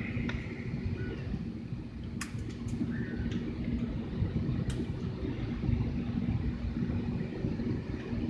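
Steady low rumble of a moving vehicle heard from inside, with a faint steady hum and a few sharp clicks, one about two seconds in and another near five seconds.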